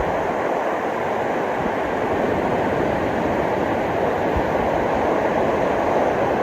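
Ocean surf on a beach, a steady, unbroken wash of wave noise.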